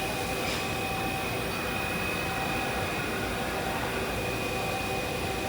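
Mazak MTV 515/40N vertical machining center's spindle running at a constant speed, a steady mechanical hum with a high, even whine over it.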